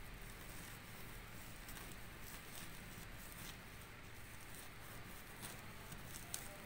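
Faint soft rustling of a paper tissue being folded and rolled between the fingers, with crushed benzoin resin inside, and one light tap near the end.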